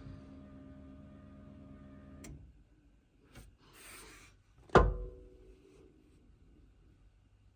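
A small electric motor hums steadily and cuts off about two seconds in, followed by faint handling noises and one sharp metallic clack with a brief ring near five seconds in.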